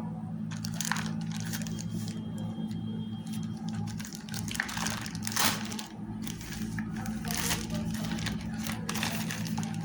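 Delivery packaging crinkling and rustling in uneven bursts as it is torn open and handled by hand, over a steady low hum.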